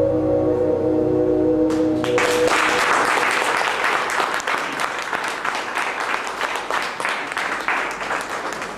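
The song's final sustained chord rings out for the first two seconds or so. The audience then breaks into applause, and the clapping slowly fades.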